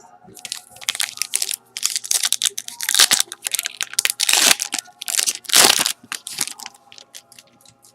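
Foil trading-card pack wrapper being crinkled and torn open by hand, in a run of loud crackling rustles that die away near the end.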